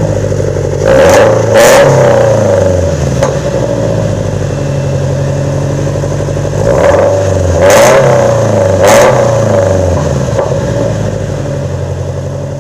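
2013 Scion FR-S flat-four boxer engine with CNT Racing unequal-length headers, heard at the exhaust, idling and blipped: two quick revs about a second in and three more around the middle, settling back to idle between.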